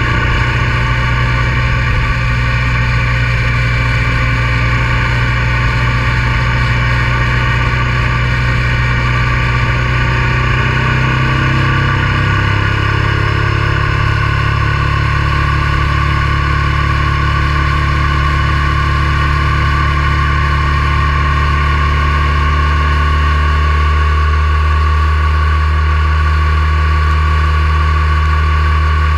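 Honda Transalp 650's V-twin engine running steadily on the move, its note shifting about twelve seconds in, as with a gear or throttle change.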